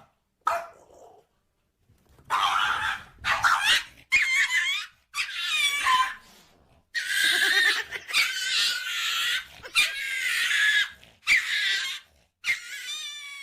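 A dog vocalizing in about nine drawn-out calls that waver up and down in pitch, with short gaps between them.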